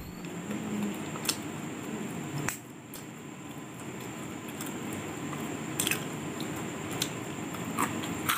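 Crisp fried maida papdi (namkeen mathri) being handled and snapped apart by hand, a few sharp cracks over a steady background hiss.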